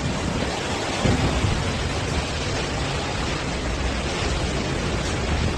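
Typhoon storm noise: a steady, dense rush of heavy rain and wind with a low rumble underneath.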